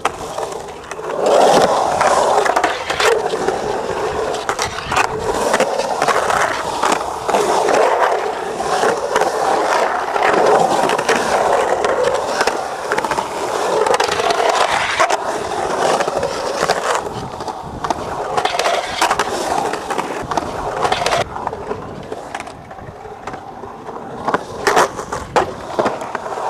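Skateboard wheels rolling and carving on a concrete bowl, a steady rushing roll broken by frequent sharp clacks of the board. The rolling eases in the last few seconds, with a few loud clacks near the end.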